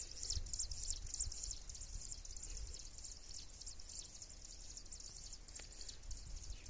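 Steady high insect chirring, with a low rumble underneath and a single faint click about five and a half seconds in.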